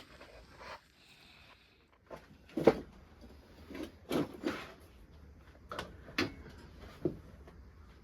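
Hard objects being handled and set down: an irregular series of about eight knocks and clunks, some with a short ringing, the loudest about two and a half seconds in.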